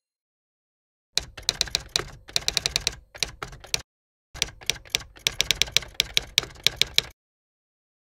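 Rapid typing keystrokes in two runs of about three seconds each, several sharp clicks a second, with dead silence between and around them.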